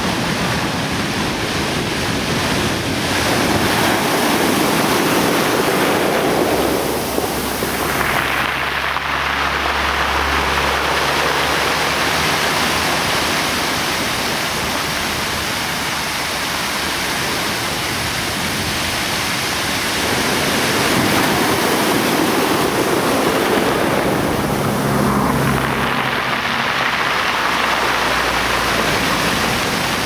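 Small sea waves breaking and washing up over a shore of dark pebbles, a steady rush of surf that swells louder twice as sets come in.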